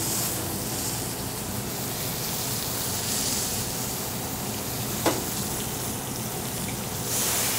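Flour-dredged red snapper fillet, with minced garlic and shallot, sizzling steadily in hot olive oil in a sauté pan, growing a little louder near the end. One sharp click about five seconds in.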